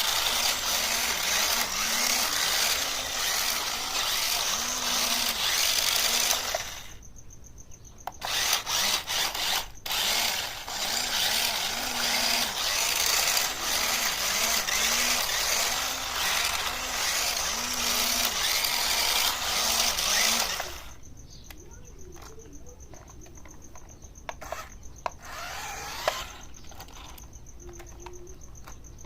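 4WD RC stunt car's small electric motors whirring with gear and wheel noise as it drives, in two long runs with a short pause about seven seconds in. It goes quiet about twenty seconds in, leaving only faint clicks.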